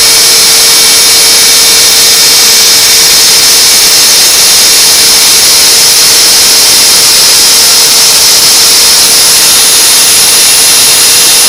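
A DIY CNC router's spindle and end mill milling aluminium: a loud, steady high-pitched whine and hiss of cutting, with a steady lower hum under it.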